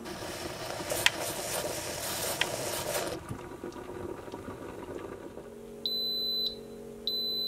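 Instant Pot Duo 3-quart electric pressure cooker beeping twice, two clear high beeps near the end, signalling that the pressure-cook time is finished and it has switched to keep-warm. Before that, a soft hiss during the first three seconds.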